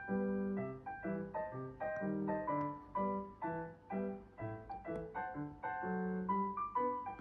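Background piano music: an evenly paced melody of short notes over lower bass notes.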